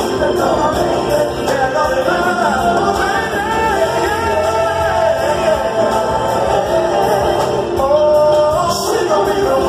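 Live R&B concert music: a singer's voice sliding between long held notes over the band's accompaniment.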